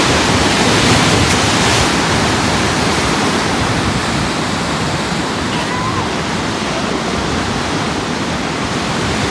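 Ocean surf breaking and washing over rocks below a cliff: a steady, loud rush of waves.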